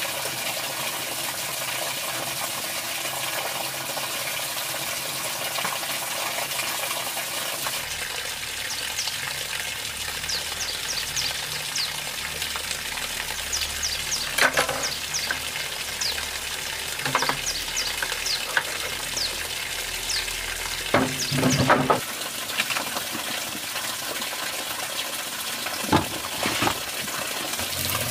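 Pork fat sizzling in a pan as it is rendered into cooking oil: a steady frying hiss with many small crackles. A few sharp knocks come through it, the loudest about two-thirds of the way through.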